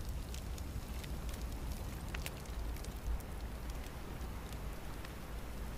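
Campfire crackling: scattered sharp pops and snaps over a low, steady rumble.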